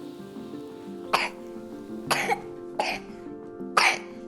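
A young child coughing: four sharp coughs about a second apart, a wet, intense cough that goes off 'like shooting'. Background music plays underneath.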